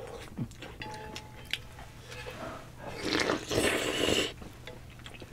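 A person slurping ramen noodles with a loud, hissing draw of air lasting about a second and a half, after a few small clicks of chewing and utensils.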